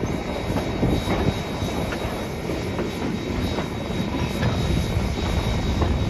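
A train rolling along the track, heard from aboard a caboose: a steady rumble with irregular clatter from the wheels on the rails, and a faint steady high whine.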